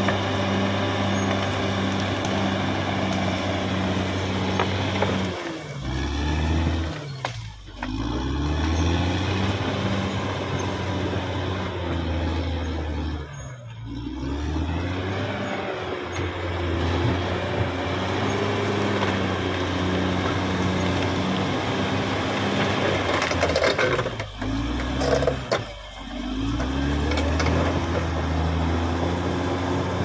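Caterpillar D6R XL bulldozer's diesel engine running hard under load. Its pitch drops and climbs back up about three times, as the throttle eases off and picks up again.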